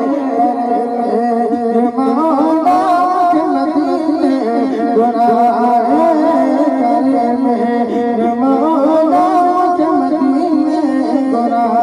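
Men's voices singing a devotional chant through a microphone and loudspeakers, a continuous melody that winds up and down with more than one voice line.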